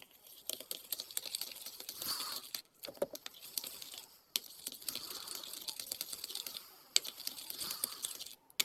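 Slime mixture being stirred in a container just after soda has been added: a dense run of small sticky clicks and crinkly crackling, with a few short pauses. The mixture is not yet coming together.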